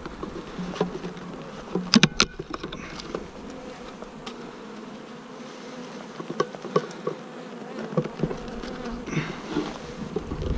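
Honeybees buzzing steadily around an opened bee package, with a quick cluster of sharp knocks about two seconds in and scattered lighter clicks after.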